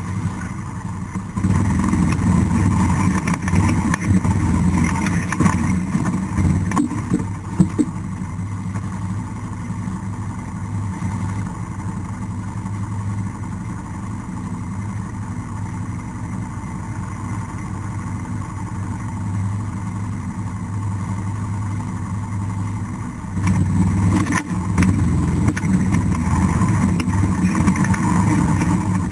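ATV engine running with a steady low drone. It is louder for several seconds near the start, settles lower through the middle and picks up again near the end, with a few sharp knocks along the way.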